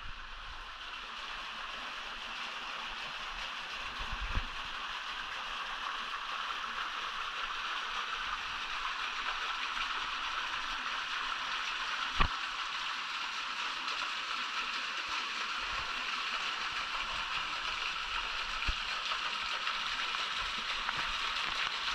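Water running and splashing over rock in a small cascade: a steady rushing hiss that grows slowly louder, with a sharp knock about twelve seconds in.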